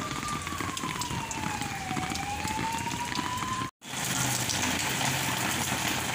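Rain falling, a steady hiss. For the first few seconds a single tone slides slowly down and back up, like a distant siren. After a brief dropout about four seconds in, the rain is louder, with a low steady hum under it.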